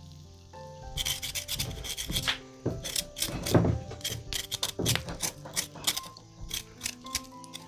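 Background music over a run of rough, irregular rubbing and rasping strokes that start about a second in.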